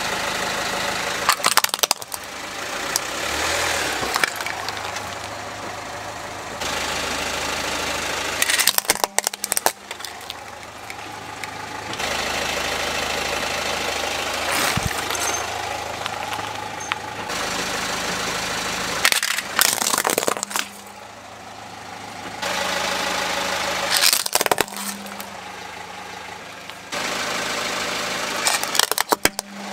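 A car tyre rolling over small plastic toys and crushing them, with repeated sharp cracking and crunching over the steady low hum of the car's idling engine.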